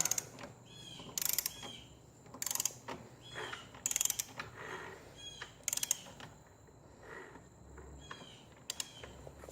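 Hand ratchet clicking in about five short bursts, with clinks of metal tools, while the scooter's drive pulley is being braced so its sheave nut can be tightened.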